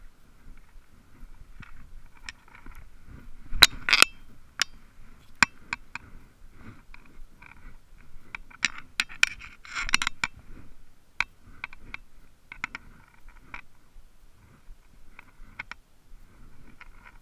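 Spinning reel being cranked in short spells to retrieve a lure, a buzzing whir that starts and stops every second or two. Sharp clicks and taps from handling the rod and reel come between, the loudest a few seconds in and again near the middle.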